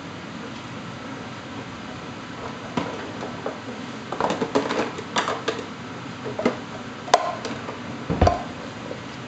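Dishes clinking and knocking as they are handled at an open dishwasher: a run of irregular clicks and clatters over a steady background hum, with one sharp click and a heavier thump near the end.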